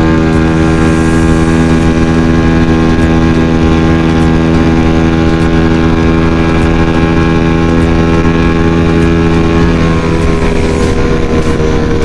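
150 cc single-cylinder motorcycle engine held at a steady high speed with the throttle locked open, its pitch barely changing, under heavy wind rumble on the helmet-mounted microphone.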